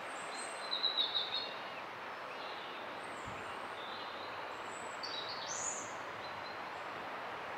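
Steady rush of a river flowing past, with small birds chirping over it: a cluster of short high calls about a second in, and more around five to six seconds in.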